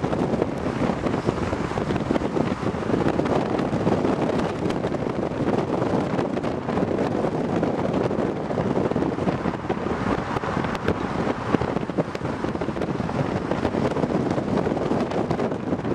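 Car driving steadily along a road at speed, with wind rushing over the microphone and a continuous engine and road noise underneath.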